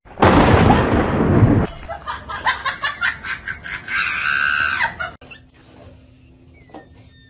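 A sudden, loud thunderclap, a heavy crash lasting about a second and a half, followed by crackling and a person screaming about four seconds in.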